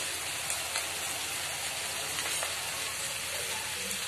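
Chopped onion, ginger-garlic paste and dried red chillies frying in hot oil in a kadhai: a steady sizzle with a few faint pops.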